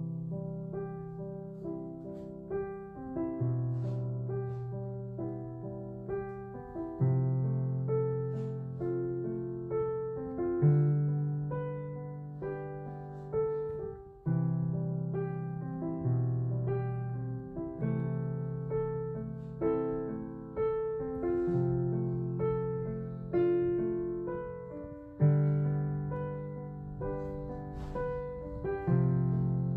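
Background piano music: a gentle melody over held bass notes that change every second or two.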